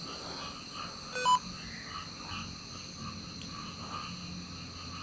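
Steady chorus of night insects, with a short electronic beep from a device about a second in.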